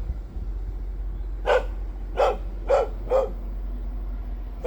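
Dog barking: four short barks in quick succession starting about a second and a half in, and another at the very end.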